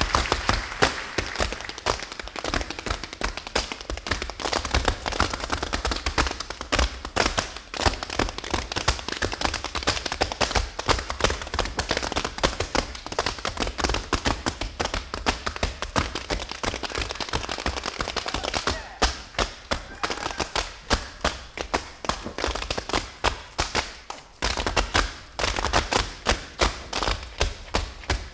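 Several tap dancers' shoes striking a wooden stage floor in fast, dense, unaccompanied tap rhythms; about two-thirds of the way through the strikes become sparser and more distinct.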